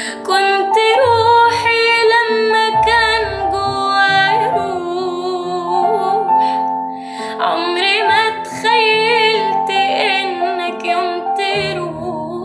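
A woman singing an Egyptian Arabic ballad, holding long notes with wavering vibrato, over a soft sustained instrumental backing track.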